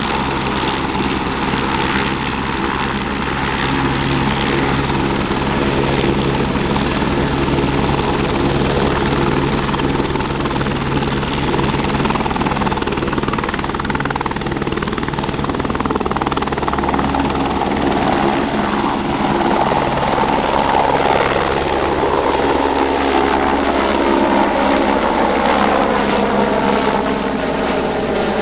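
Airbus AS350B3 Ecureuil helicopter, its single Arriel 2B turboshaft and main rotor running at flight power on the ground, with a steady rotor beat and a high turbine whine. In the second half it lifts off, the whine edging up in pitch, and the sound sweeps as it climbs overhead near the end.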